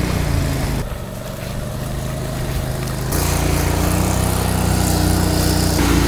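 Engine of an amphibious ATV running steadily as it drives through a pond, a low, even drone that drops back about a second in and returns louder about three seconds in.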